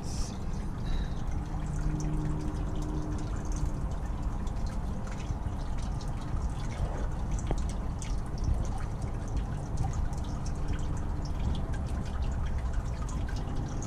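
Airbrush spraying black paint onto a balsa-wood lure, a steady hiss of air and paint.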